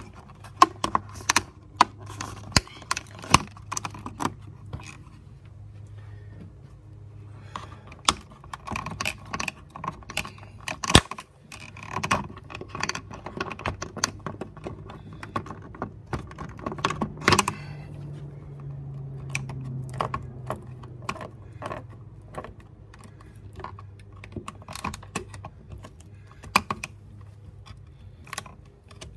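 Irregular clicks, taps and rattles of an Andersen Narroline window's plastic side jamb liner being pulled and worked out of the frame by hand, with a low steady hum underneath.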